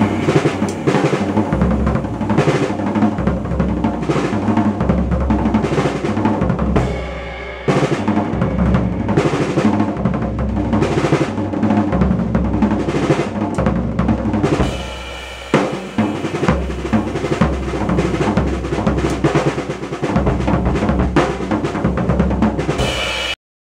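Drum kit played with sticks: fast, busy snare and tom strokes over bass drum, with cymbals. It eases off briefly twice and then cuts off abruptly near the end.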